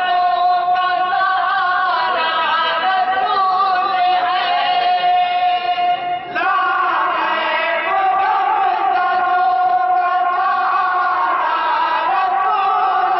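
A group of men singing a devotional naat together in chorus into a microphone, holding long notes, with a short break between phrases about six seconds in.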